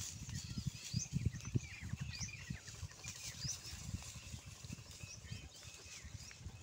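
A herd of water buffalo moving and grazing over dry leaf litter, giving irregular low rustles and thuds, with small birds chirping throughout in short falling notes.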